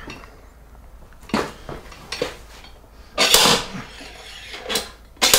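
Irregular metal clanks and knocks, about six of them, as a bearing puller is worked against a stuck bearing in a Jeep NSG370 six-speed transmission's rear housing. The loudest knock comes about three seconds in.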